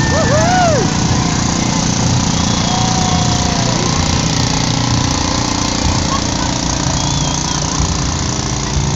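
A parade float's engine running loudly and steadily close by, a dense low rumbling drone, with a few voices calling out near the start.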